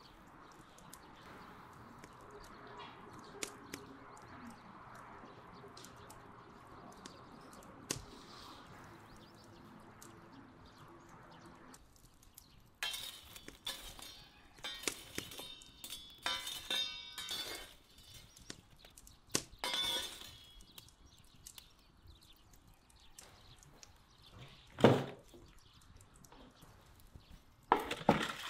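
A wood fire crackling and popping in a brick oven in a dense run of sharp cracks, after a quiet stretch. Then a single loud thump, and near the end the clatter and scrape of a steel roasting tray being pushed into the oven.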